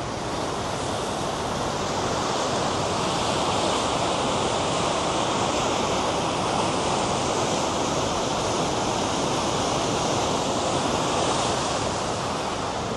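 River rapids rushing: a steady, even roar of fast water that swells slightly in the middle.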